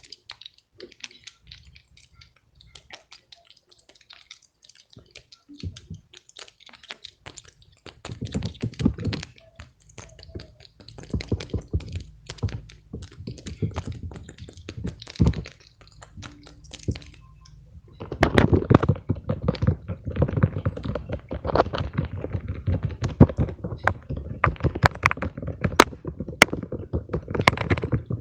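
Fidget toys being handled: scattered light clicks and taps at first, becoming a dense run of rapid clicking and tapping from about two-thirds of the way in.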